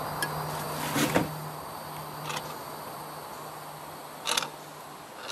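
PVC primer can and its dauber being handled and swabbed onto the end of a PVC pipe: a few short knocks and scrapes, the loudest about a second in. A faint steady low hum sounds underneath.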